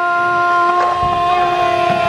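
A teenage boy holding one long, loud sung "aah" at a steady pitch, with faint voices underneath.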